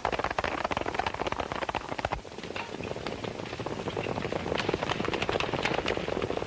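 Many horses galloping: a dense, rapid clatter of hoofbeats. It changes to a slightly quieter, thinner clatter about two seconds in.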